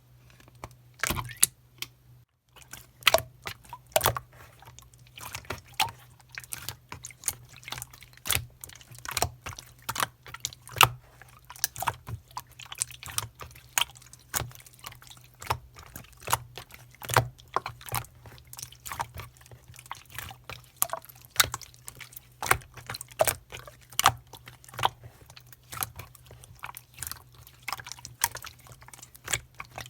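Slime being squeezed and pressed by hand, giving irregular sharp clicks and pops, several a second.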